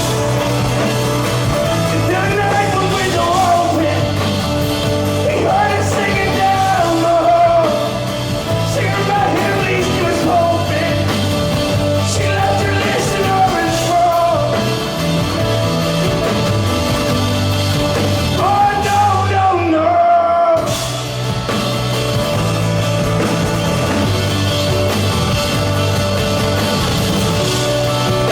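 Live band performing a song, with a male lead vocal singing long, gliding melodic lines over a steady rhythm. The music drops out for a moment about twenty seconds in, then the band comes back in without the voice.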